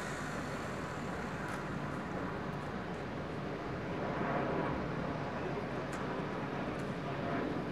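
Antonov An-178 twin-turbofan transport aircraft in flight overhead: a steady rushing jet-engine noise that swells slightly about four seconds in.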